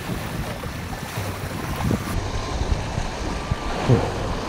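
Wind noise on the microphone over sea water washing and splashing against shoreline rocks.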